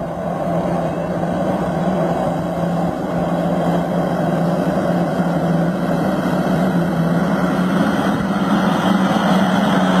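Mitsubishi L200 pickup's engine running steadily under load as it tows a tillage implement through the soil. It comes closer and gets gradually louder.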